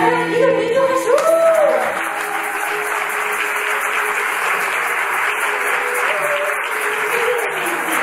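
Audience applauding, with a few cheers in the first couple of seconds while the last held note of the music dies away.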